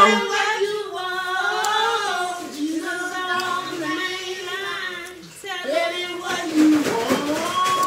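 A woman singing a gospel tune in long, drawn-out notes that slide up and down in pitch, with a short break a little past the middle.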